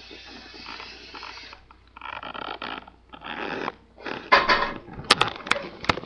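Kitchen tap running into a metal cooking pot, shut off about a second and a half in. Then come a few short bursts of rustling handling noise and three sharp knocks near the end.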